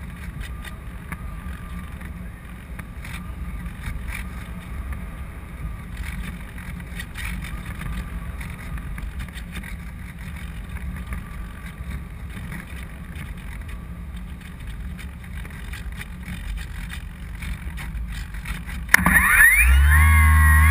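Wind rumbling and buffeting on the microphone of a GoPro carried aboard a Parkzone Radian Pro RC glider in flight. About a second and a half before the end, loud music with electric guitar comes in over it.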